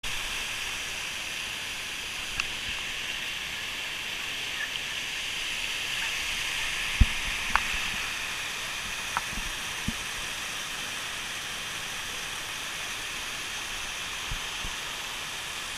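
Rocky cascade waterfall rushing steadily, its water falling over and around the rock. A few small knocks are heard, with one low thump about seven seconds in.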